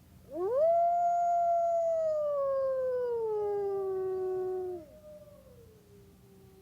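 A canine howl: one long call that rises quickly, holds, then slowly falls in pitch for about four and a half seconds before cutting off, with a fainter second howl overlapping its end and trailing on a little longer.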